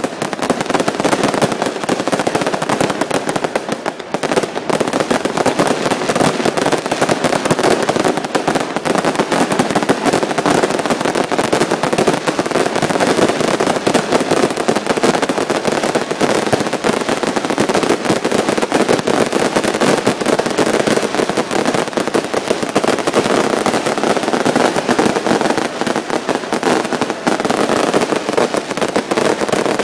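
Fireworks display going off in a loud, dense, unbroken barrage of rapid bangs and crackling.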